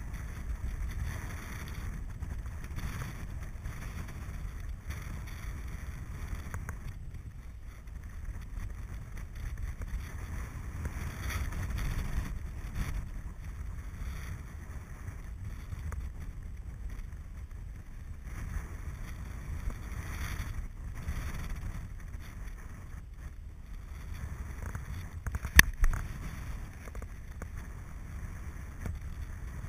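Wind buffeting the camera microphone of a paraglider in flight: a steady low rumble that swells and eases. Near the end, a sharp click followed quickly by a smaller one.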